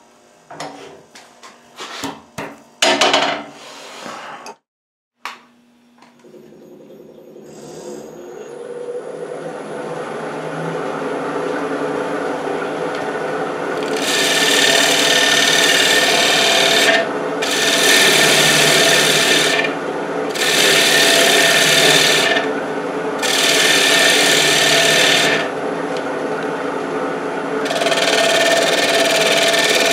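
A few clicks and knocks of tool handling, then a wood lathe spinning up, its steady hum building over several seconds. From about halfway, a scraper cuts the spinning wood in five hissing passes of two to three seconds each, skimming the surface back to bare wood.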